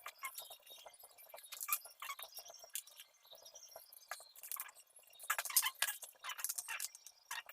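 Metal parts of an angle grinder stand clinking and clicking against each other as they are handled and fitted together by hand, in irregular clusters of light knocks.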